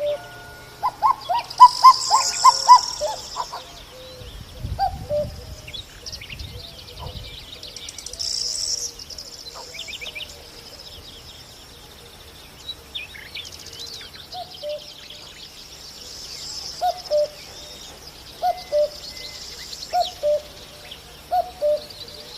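A cuckoo calling its two-note "cu-coo", the second note lower, repeated about every second and a half in the second half. Other small birds chirp high and busily throughout, with a quicker run of notes about a second in.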